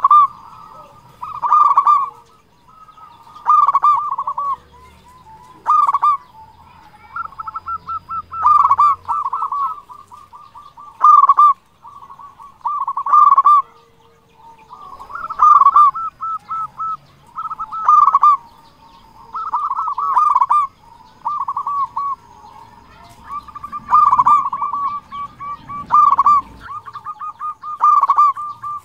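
Zebra dove (perkutut) singing: phrases of quick, rolling coo notes, repeated about every two seconds.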